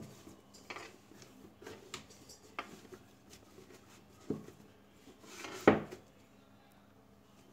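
Hands kneading a soft ball of dough on a wooden work surface: scattered soft knocks and pats as the dough is pressed, folded and set down, the loudest thump about two-thirds of the way through.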